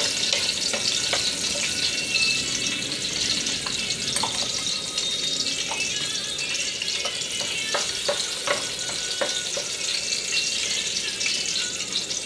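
Sliced onions sizzling steadily in hot oil in an aluminium pot, with a few light clicks of stirring against the pan about halfway through.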